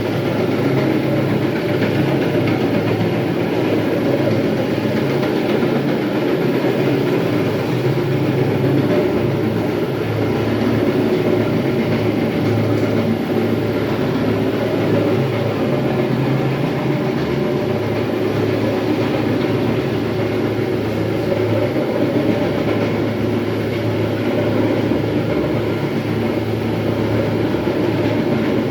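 Electric terrazzo grinder running steadily on a floor, a continuous grinding noise over a steady low motor hum.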